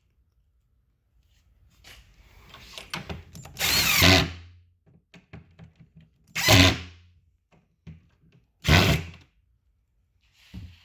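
Power drill driving screws to tighten cabinet clamp brackets: a run of about two seconds that builds up, then two short bursts about two seconds apart, with small clicks in between.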